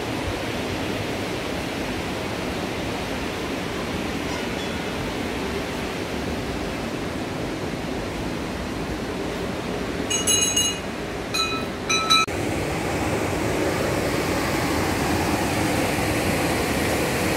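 Steady rush of a rocky mountain river flowing over boulders, growing a little louder near the end. About two-thirds of the way through come three short, ringing metallic clinks.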